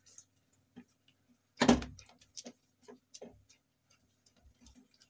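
Spatula knocking and scraping against a non-stick pan while stirring a thick jaggery and khoya (mawa) mixture: a few scattered knocks, the loudest a little under two seconds in, over a faint steady hum.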